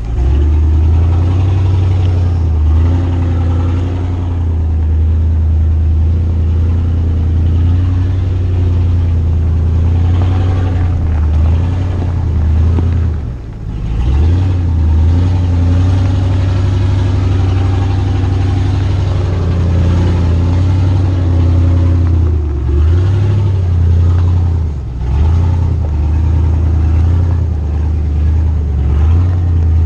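Pickup truck engine pulling the truck along a rough trail, the revs rising and falling with the throttle, with a few brief drops in level where the throttle lifts.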